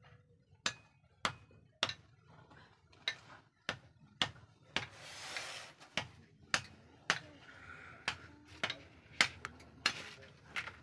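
A run of sharp, irregular knocks and clinks, some fifteen in all, one with a brief ringing ping near the start, and a short hiss about five seconds in.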